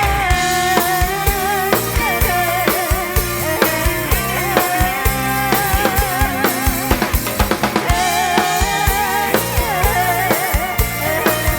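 Live band playing an instrumental passage: a drum kit keeps a steady beat with kick and snare under a wavering lead melody.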